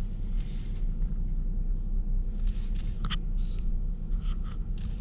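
Low, steady rumble of a car's engine and tyres heard from inside the cabin as it creeps forward at walking pace on full steering lock. A few faint, short clicks and rubs come between about three and four and a half seconds in.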